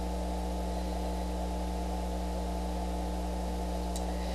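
Steady electrical mains hum with a faint hiss behind it; a single faint click about four seconds in.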